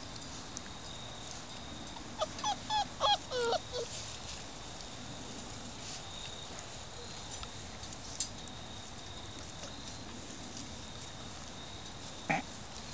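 Puppies whining and yelping: a quick run of about six short, high yelps, each falling in pitch, a couple of seconds in, and one more short yelp near the end.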